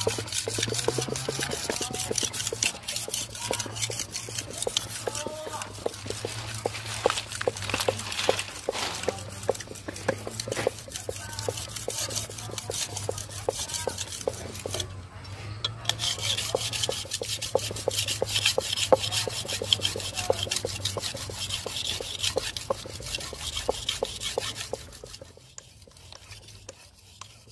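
A steel knife blade scraped back and forth across a wet red clay brick used as a whetstone, in quick rasping strokes, as the edge is honed. The scraping stops about 25 seconds in.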